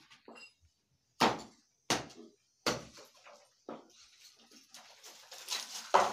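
A few sharp knocks and clinks at irregular intervals, roughly one a second, with the loudest near the end.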